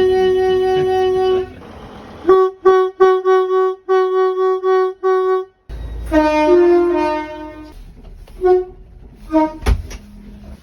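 Train horn blown: a long steady blast that stops about a second and a half in, then a quick string of short toots. After an abrupt change, a horn with a lower, fuller chord gives a few more toots that grow fainter, with a sharp knock near the end.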